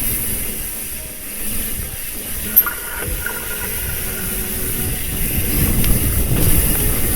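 Trek Fuel EX full-suspension mountain bike ridden along a dirt trail: a steady rumble of tyres and rattle from the bike, with wind hiss over it and one sharp tick about a third of the way in.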